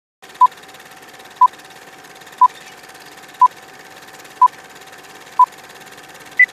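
Film-leader countdown sound effect: a short beep once a second, six times, then a single higher-pitched beep near the end, over a steady hum and a fast crackle like old film running.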